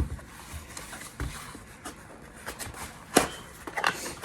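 Hands handling candles and their packaging: soft rustling broken by several sharp knocks, the loudest a little past three seconds in.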